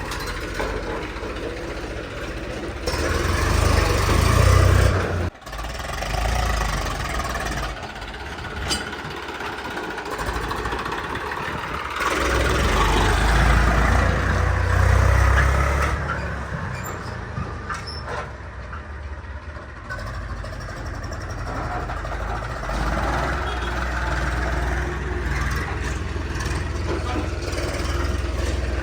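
JCB digger's diesel engine running and working, swelling louder in three long surges as it digs and loads mud.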